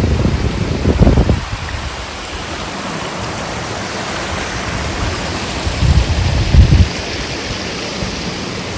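Wind buffeting the microphone in gusts, loudest at the start and again about six seconds in, over a steady rushing hiss of outdoor water and wind noise.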